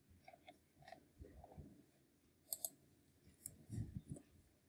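A few faint computer mouse clicks, with a soft low rustle just before the end.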